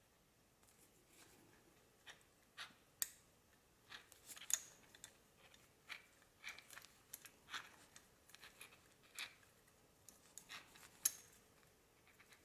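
Small scattered clicks and short scrapes of metal parts being handled as the rod and seal of a VGT turbo air actuator are worked into its housing by hand. The clicks come irregularly, starting about two seconds in, with the sharpest ones near the middle and near the end.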